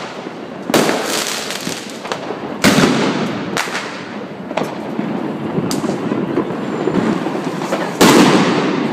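Fireworks and firecrackers going off: a steady crackle of bangs with louder sharp reports every second or two, the loudest near the end.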